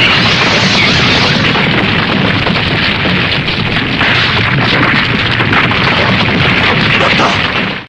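Tokusatsu sound effect of a long, continuous explosion roar, a steady, dense rumble that cuts off suddenly at the end.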